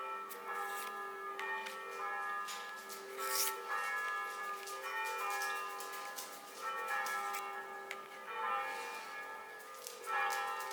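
Background music of bell-like chiming notes, changing pitch every half second or so, with a few sharp clicks over it.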